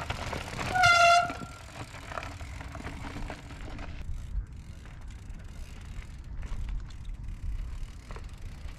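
Mountain bikes rolling down a dry dirt trail, tyres crunching over loose dirt and gravel with scattered small clicks and rattles. About a second in, a single short, high-pitched steady tone sounds, the loudest thing heard.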